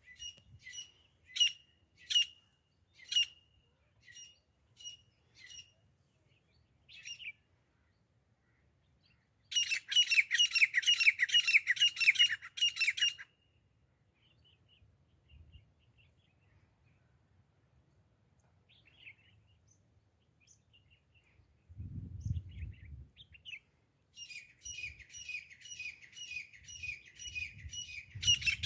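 Grey francolin calling: sharp single notes about once a second, then a fast run of about a dozen repeated calls a third of the way in, and another fast run starting near the end.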